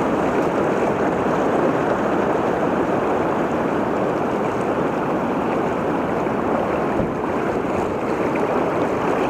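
Fast river current rushing over shallow rapids: a steady, even rush of moving water.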